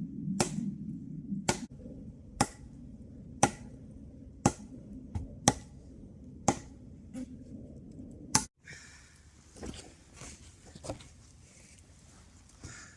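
Steady chopping blows on wood, one sharp strike about once a second. About two-thirds in the sound cuts to quieter outdoor background with a few soft knocks.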